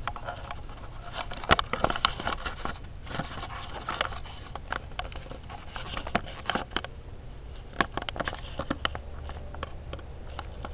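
Handling noise of a camera being moved and set down on a car's fender: irregular clicks, taps and scraping, with the sharpest knock about a second and a half in.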